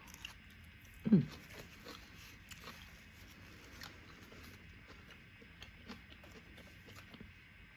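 Faint close-up chewing of a buffalo chicken wrap: scattered wet mouth clicks and smacks, with one short falling vocal sound about a second in.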